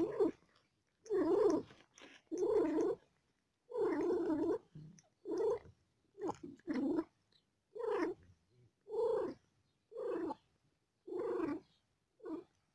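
Mother cat purring while giving birth, close up, in short separate bursts about once a second, one burst per breath.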